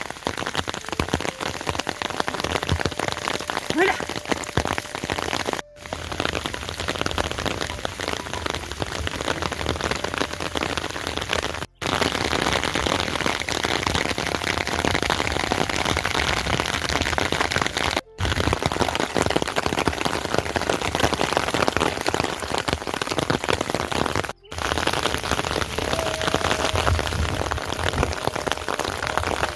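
Steady heavy rain falling, a dense even patter that cuts out for a split second roughly every six seconds.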